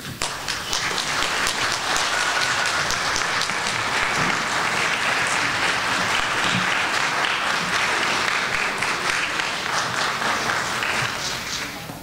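Audience applauding, swelling within the first second, holding steady, then dying away near the end.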